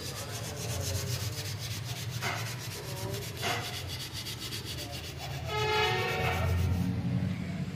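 Rapid, even rasping strokes, about ten a second, over a steady low hum. About five and a half seconds in, a pitched horn-like tone with several overtones rises over it and is the loudest sound.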